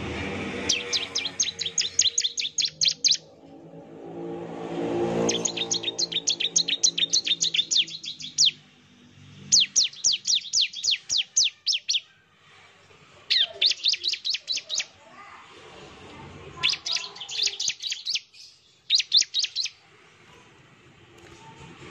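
Bar-winged prinia (ciblek) singing its rapid 'nembak' song: six bursts of fast, high, repeated chip notes, about eight a second, each burst lasting one to three seconds with short pauses between. A faint low hum swells underneath in the first half.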